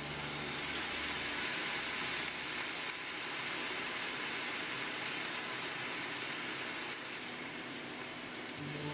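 Sugar-and-soy-sauce seasoning sizzling on contact with a hot frying pan of fried tofu (atsuage) and green peppers, a steady hiss as the sauce bubbles and reduces.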